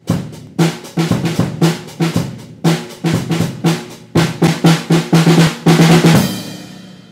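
Drum beat of outro music: snare and bass drum hits in a steady pattern that quickens into a fast run near the end, closing on a final hit that rings and fades out.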